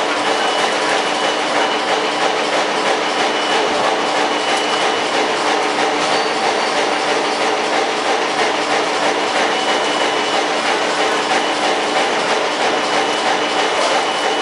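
Steady machinery running noise with a constant hum and a faint high whine, unchanging throughout.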